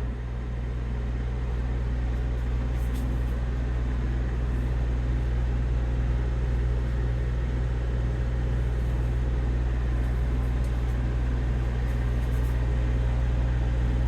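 Keurig K-Express single-serve coffee maker brewing: its pump running with a steady, loud hum as it pushes water through the pod.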